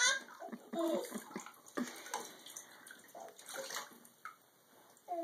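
Bath water splashing and sloshing in scattered small bursts, stirred by children's hands and toy cups in a bathtub.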